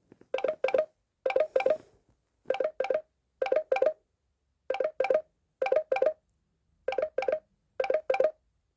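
A Samsung Galaxy A36 5G ringtone playing from the phone's speaker: short clusters of two or three quick plucked-sounding notes, repeating about once a second.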